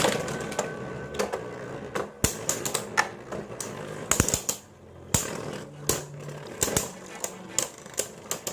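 Irregular sharp clicks and knocks of hard plastic, a few a second, from a Beyblade top being handled or knocking about.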